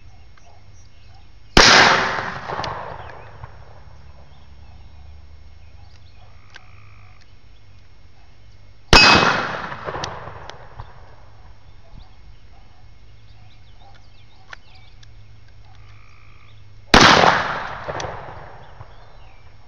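Three single gunshots about seven to eight seconds apart, each a sharp crack followed by a long echo that rolls away over a second or two.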